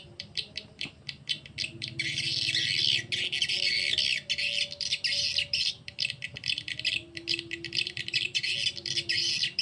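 Recorded swiftlet calls, a swiftlet-house lure track ('suara panggil', the call sound that draws birds in), played through a horn tweeter: rapid, dense chirping twitters that thicken about two seconds in, over a faint low steady hum.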